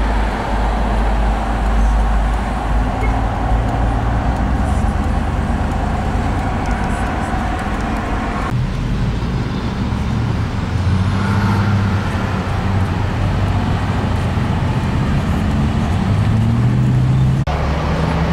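Road traffic: motor vehicles running with a steady low engine rumble, changing abruptly about halfway through and again near the end.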